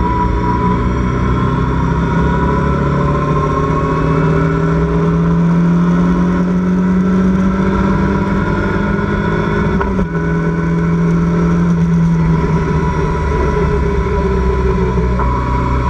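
Locost race car's engine at full throttle, heard from its open cockpit, the revs climbing slowly along a straight, with a brief dip about ten seconds in as it shifts up a gear, then pulling on. A steady rush of wind noise runs under it.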